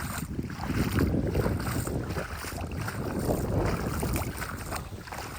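Floodwater sloshing and running, with wind rumbling on the microphone.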